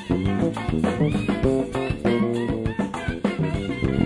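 Live jazz-funk band playing: electric guitar over drum kit and electric bass, with a busy, steady groove.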